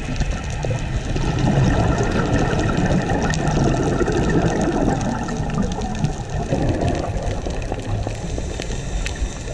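Muffled underwater noise heard through a camera's waterproof housing: a dense, steady rushing with scattered faint clicks.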